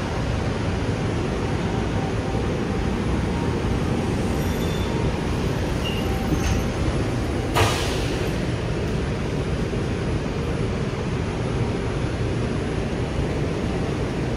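R142 subway train's steady running and ventilation noise, with a single sharp knock about halfway through.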